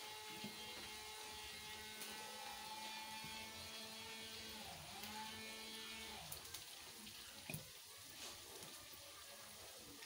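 Faint wet squelching of hands kneading marinated chicken drumsticks in a glass bowl, over a steady low hum that stops about six seconds in; a few small clicks near the end.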